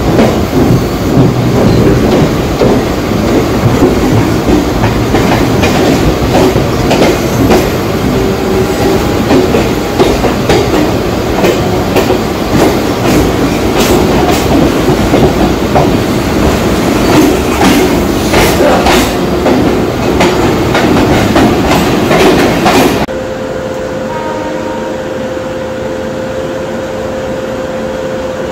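Mumbai suburban local train running on its rails, wheels clattering over rail joints and points with a run of sharp clicks partway through. About 23 seconds in, the sound cuts off abruptly to a quieter steady hum with a faint tone.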